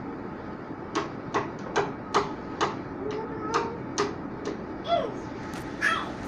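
A brush tapped repeatedly against a wooden headboard: a run of about ten short, sharp taps, roughly three a second. About five seconds in there is a brief high vocal sound that slides down in pitch.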